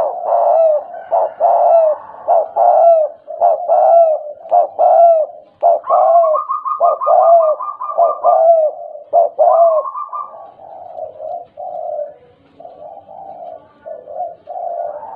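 Spotted dove (tekukur) cooing loudly in a quick stuttering run of short coos, about two a second, each dropping in pitch. The calls turn softer for the last few seconds.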